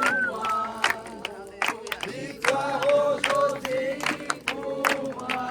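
A group of voices singing a worship chorus in French together, with hands clapping along in time.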